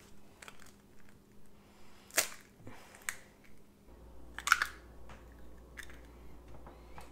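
Eggs being cracked on the rim of a stainless steel mixing bowl: a sharp tap about two seconds in, then a quick cluster of taps a little past halfway, with a few fainter knocks in between.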